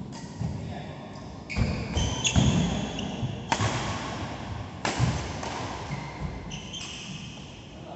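Doubles badminton rally: several sharp racket strikes and thuds of footsteps, with shoes squeaking on the court in short high squeals.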